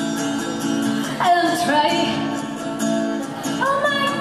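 A woman singing into a microphone, accompanied by an acoustic guitar. Her voice enters about a second in with sliding notes over the held guitar chords, and comes in again near the end.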